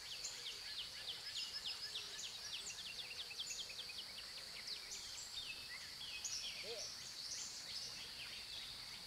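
Small songbirds chirping in the trees, a quick run of short downward-sliding notes, thickest in the first few seconds and sparser after. Under them run a steady high-pitched drone and the even wash of a garden fountain's water.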